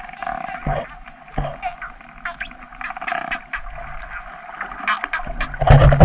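Dolphins heard underwater: a stream of sharp clicks with a few high, rising whistles over a steady tone. A loud rush of water comes near the end.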